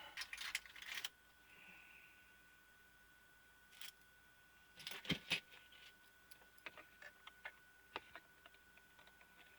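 Faint, scattered clicks and small taps of a small screwdriver and plastic projector parts being handled, with a denser group of clicks near the start and another about five seconds in.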